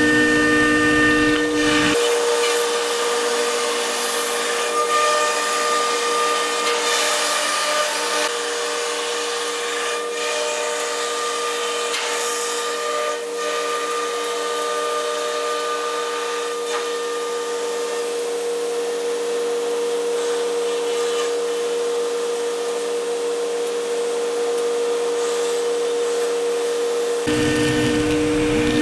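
A CNC router spindle running at a steady pitch as the bit cuts through melamine sheet, under the steady rush of the dust extraction. The low rumble drops away about two seconds in and comes back near the end.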